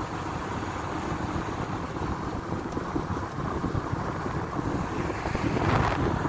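Car driving along a rough road, a steady rumble of tyres and engine with some wind noise, swelling louder briefly near the end.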